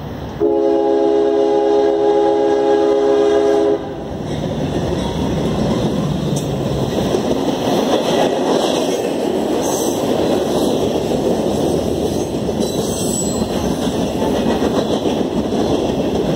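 A freight locomotive's air horn sounds one long blast, a chord of several steady tones lasting about three seconds. Then the freight train's cars roll past close by with steady wheel and rail noise.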